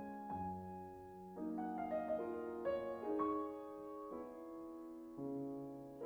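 Solo acoustic piano playing a slow, lyrical piece: held chords ringing on, with new notes and a melody above them entering every half second to a second.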